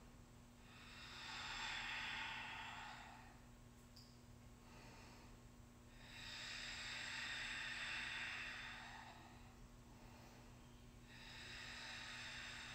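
Slow, deep yoga breaths: three long, soft breath sounds about five seconds apart, over a faint steady electrical hum.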